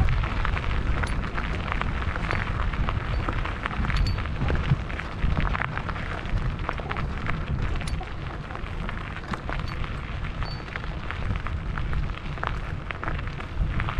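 Wind buffeting the microphone in a steady low rumble, with tyres crunching and crackling over a gravel road.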